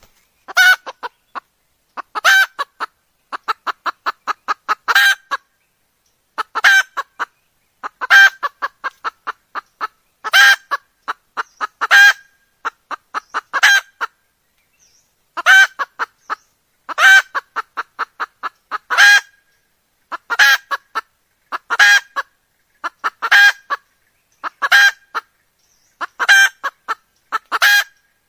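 Red junglefowl hen cackling: a loud note followed by a quick run of short clucks, repeated about every one and a half seconds. It is the call of a hen in breeding condition, used to lure junglefowl cocks.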